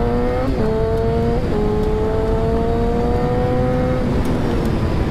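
2009 Yamaha XJ6 N's 600 cc inline-four engine accelerating through the gears: the note climbs in each gear, with two quick upshifts in the first second and a half, then a long pull until the throttle closes about four seconds in. Steady wind noise runs underneath.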